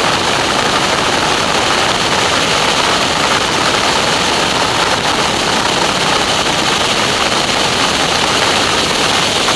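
Steady rush of wind over a wing-mounted camera on a Stearman biplane in flight, mixed with the running of its radial engine.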